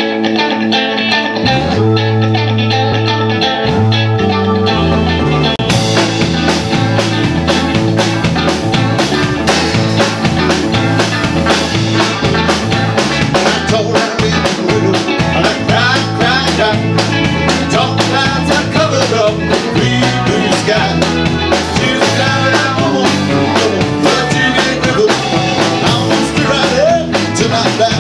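Rock band playing. An electric guitar opens alone, a bass line comes in about a second and a half in, and the drum kit joins around six seconds in, after which the full band plays on.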